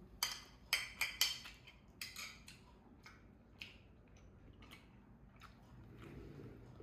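Metal spoon clinking and scraping against a plate while scooping up fried rice: a quick cluster of sharp clicks in the first couple of seconds, then a few softer, sparser taps.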